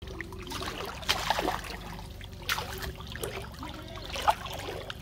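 Pond water splashing and trickling as a large fish thrashes in a cast net held at the surface, with sharper splashes a little after a second in, about halfway, and near the end.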